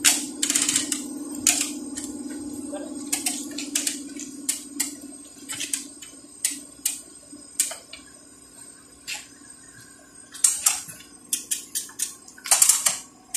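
Hand-operated lever chain hoist (come-along) being ratcheted with its chains drawn tight, giving irregular sharp metallic clicks and chain clinks, bunched in a quick run near the end. It is tensioning the pulling chains to draw a crushed door pillar and sill back into place. A steady low hum runs under the first few seconds.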